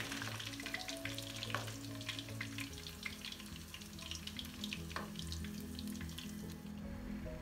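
Breaded chicken strips frying in hot sunflower oil in a pan, a steady sizzle with fine crackling pops.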